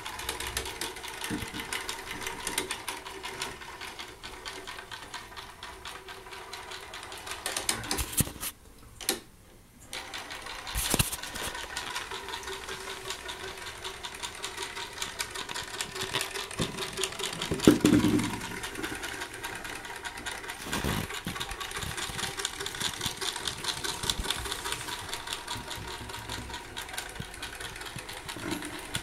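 Clockwork motor of a toy boat running, a fast steady mechanical whirr. It breaks off for about a second roughly a third of the way in, with a few knocks from handling, the loudest a little past halfway.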